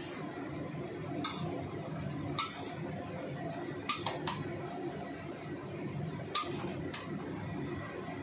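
Metal spatula scraping and clinking against a stainless steel wok as cabbage and black fungus are stir-fried. There are about seven sharp strokes, with a quick run of three about four seconds in, over a steady low background noise.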